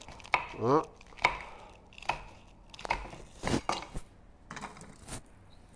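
Kitchen knife chopping red horn chillies on a wooden cutting board: a string of irregular knife strikes on the board, roughly one to two a second.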